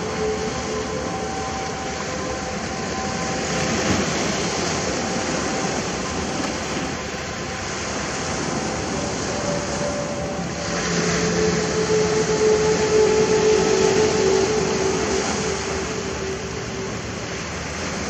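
Sea waves washing onto a sandy beach, a steady surf rush that swells louder about two-thirds of the way through, with faint steady humming tones underneath.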